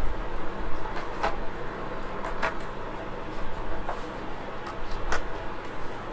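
Four sharp clicks and taps, spaced about a second apart, from hard parts being handled and set in place during TV reassembly, over a steady background hiss and low rumble.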